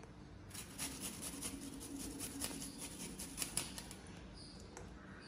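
Garlic cloves grated on a small handheld metal grater: a quick run of short, faint scraping strokes that dies away near the end.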